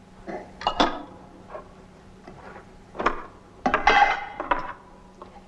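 Several short knocks and clinks, as of things handled on a table, with a louder cluster of them about four seconds in.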